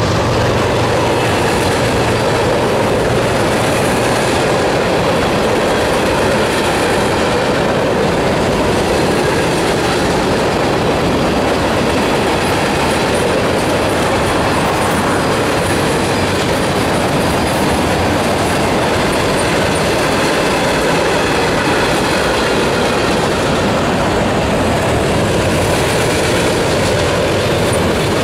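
Freight train cars (boxcars and tank cars) rolling steadily past on the track: a continuous, loud noise of steel wheels running on the rails.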